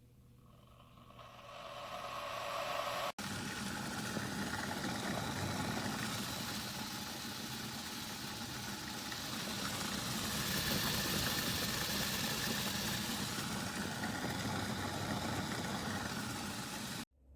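Fellow Stagg EKG electric gooseneck kettle heating water. A rushing hiss and rumble builds over the first two seconds and then holds steady, with a momentary break about three seconds in. It stops abruptly near the end.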